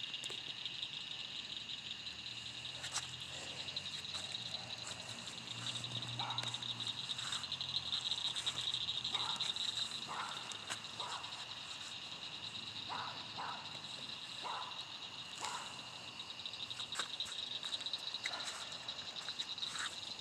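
Night chorus of calling frogs and insects: a steady, high, finely pulsing trill that runs on without a break, with scattered short, lower sounds.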